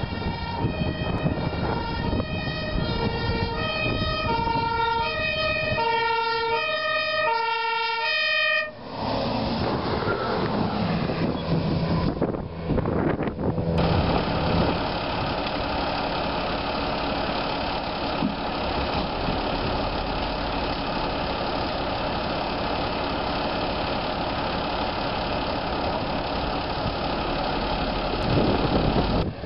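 Fire engine's two-tone siren, alternating steadily between a high and a low note, stopping sharply about eight and a half seconds in. After that come steady outdoor noise and a vehicle engine running.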